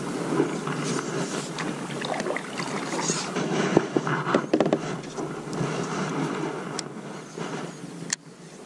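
Paddling a Bonafide SS107 fishing kayak: paddle strokes splashing and dripping water, with a few sharp clicks and knocks, over wind on the microphone.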